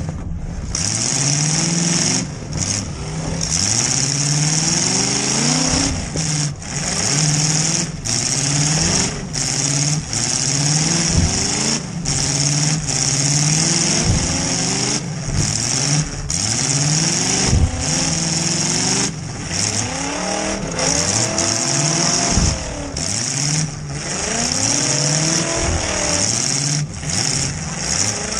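Demolition derby car's engine revving up and down over and over, heard from inside the stripped cabin, with a few sharp knocks and bangs mixed in.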